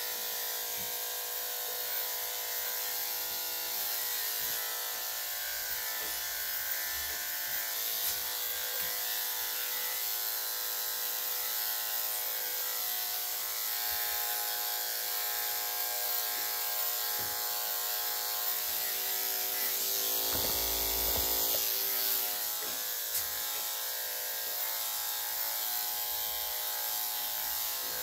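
Corded electric dog grooming clippers fitted with a #3¾ blade buzzing steadily as they shave through a curly coat. The sound swells briefly, for a second or two, about three-quarters of the way through.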